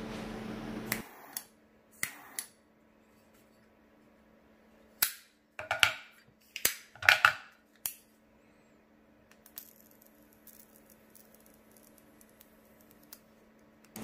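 Zippo lighter cases with flame inserts being flipped open and snapped shut: a series of sharp metal clicks and clacks, bunched between about five and eight seconds in. They follow a steady hiss that cuts off about a second in. Near the end comes a faint high buzz with small ticks from the Zippo arc insert's electric arc.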